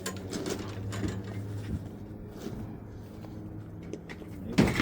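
Light clatter and clicks of hand tire tools being handled, over a steady low hum, with a sharper knock near the end.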